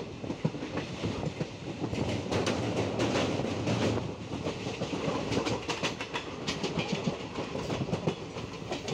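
An Indian Railways express passenger train running at speed, heard from aboard the coach. Steady rumble of wheels on the track, with repeated short clicks as the wheels pass over rail joints.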